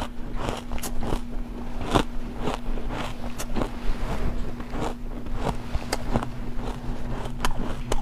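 Chewing of refrozen ice chunks: irregular crisp crunches, several a second, over a steady low hum.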